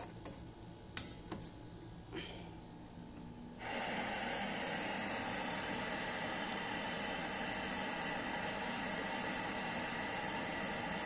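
Sony 21-inch CRT television being plugged in and switched on: a few clicks, then about three and a half seconds in its speaker starts a steady hiss of static from an untuned channel.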